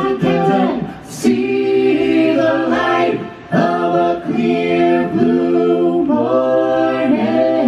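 A cappella vocal group singing in harmony, several voices holding chords together, with two short breaks between phrases about one and three seconds in.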